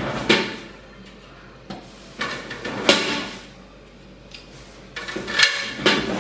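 Plastic dehydrator trays being handled and knocking together, in several short clattering bursts spread through a few seconds.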